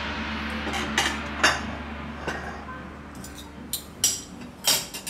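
Metal spoons clinking as they are set down on ceramic plates: several sharp clinks at irregular intervals, about half a second to a second apart. Under the first clinks, an edited-in sound effect with a low hum fades away over the first few seconds.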